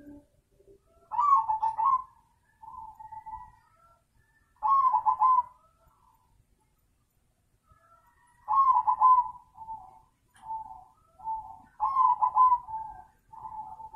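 Crossbred zebra doves (perkutut) singing: runs of staccato coos, with four louder phrases about every three and a half seconds and softer coos in between.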